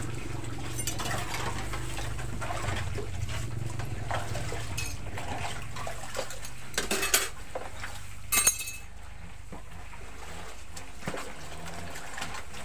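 Metal cooking utensils clinking and scraping against a large wok and pots. There are two louder clatters about seven and eight and a half seconds in, the second with a short metallic ring. A steady low hum runs underneath and fades out near the end.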